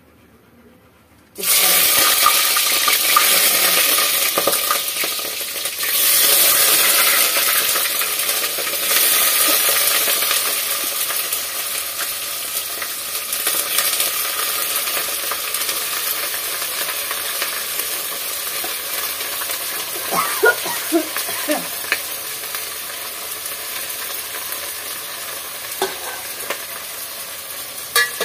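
Chopped green chillies, onion, ginger and garlic hitting hot mustard oil in a pot: a sudden loud sizzle that flares up again with each new handful, then slowly settles into steady frying. A few sharp knocks come later on.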